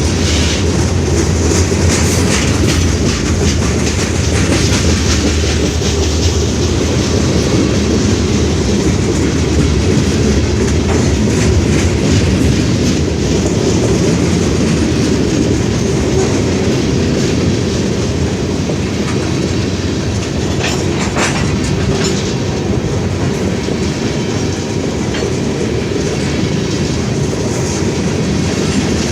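A heavy freight train's cars rolling past, a steady rumble with the wheels clicking over the rail joints.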